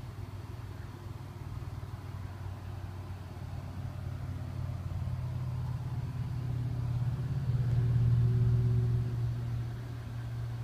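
Low engine hum of a vehicle, swelling to its loudest about eight seconds in and then fading.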